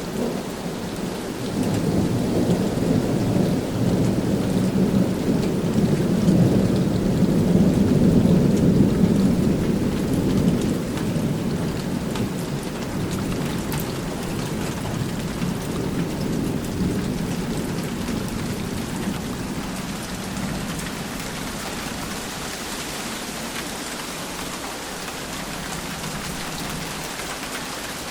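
Steady rain falling, with a long rolling rumble of thunder that builds about two seconds in, peaks, and slowly dies away over the next fifteen seconds or so.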